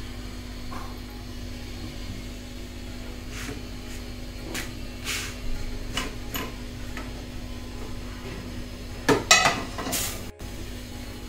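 Kitchen clatter while rotis are made: scattered light knocks and scrapes of utensils over a steady hum, with the loudest clatter near the end.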